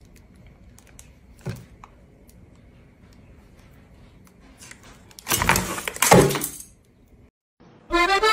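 Quiet room tone with a few faint clicks, then a loud clatter lasting over a second about five seconds in. Accordion music starts near the end.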